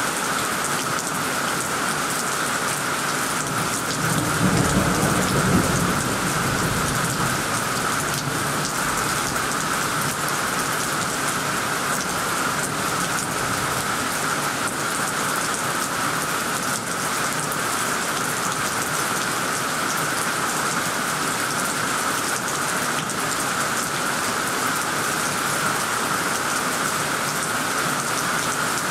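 Heavy rain pouring steadily onto tree leaves and a tiled roof, with a low rumble of thunder rising about four seconds in and fading within a few seconds.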